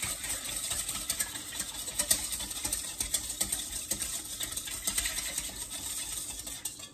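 Wire whisk beating a thin, watery sauce in a stainless steel mixing bowl: a fast, steady run of clicking and scraping as the wires hit the metal.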